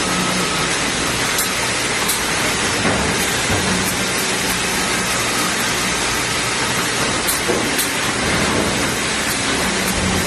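Industrial woodworking machinery running: a loud, steady, dense rushing noise with a low hum that drops out for a few seconds early on and then returns.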